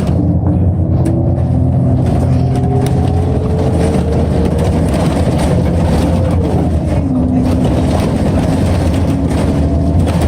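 City bus in motion, heard from on board. A steady low engine rumble runs under a whine that climbs slowly in pitch as the bus accelerates, drops sharply about six and a half seconds in, then holds at a lower pitch.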